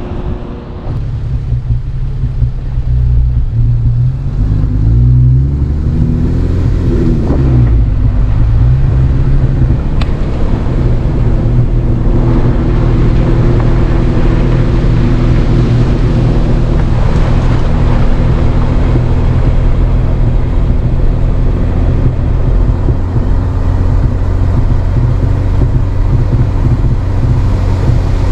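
A car engine picking up speed over the first several seconds, its pitch rising and falling as it pulls away, then settling into a steady low rumble of engine and road noise while cruising.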